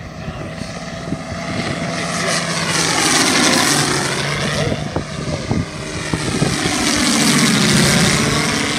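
Engine and propeller of a radio-controlled scale T-28 Trojan flying low past. It grows loud twice, about three seconds in and again near the end, and its tone sweeps in pitch each time it goes by close.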